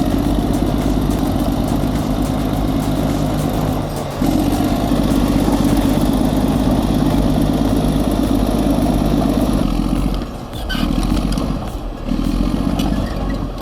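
Heavy diesel engine of an earthmoving machine running under load. It gets louder about four seconds in and dips briefly twice near the end.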